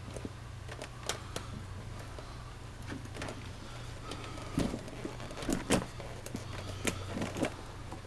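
A rubber Servus buckle overshoe being handled and pulled on over a leather work shoe: scattered rustles and knocks, with heavier thumps about four and a half to six seconds in, over a low steady hum.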